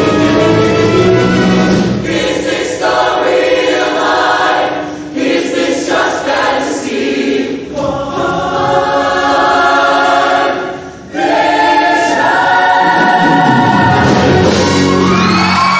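Large mixed show choir singing sustained chords in full harmony, breaking off briefly about eleven seconds in before coming back in loud.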